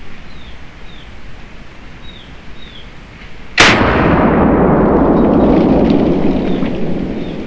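.30-30 rifle firing a single shot about three and a half seconds in: a sharp crack, then a long rolling echo that fades out over about four seconds.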